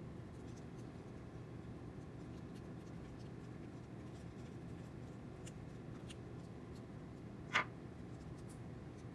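Small screwdriver turning a terminal screw as wires are pushed in and tightened down: faint scratching and ticking, with one sharper click about seven and a half seconds in, over a steady low background hum.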